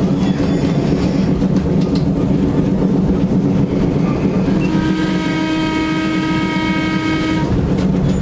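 A 1912 electric heritage railway car running along the track with a steady rumble, and one long steady whistle blast of about three seconds, starting about four and a half seconds in, sounded for a road crossing.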